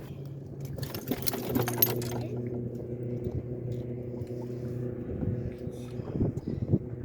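Metal clattering and jangling for about a second and a half, a second in, as the pliers are rummaged out of the tackle, over a steady low motor hum.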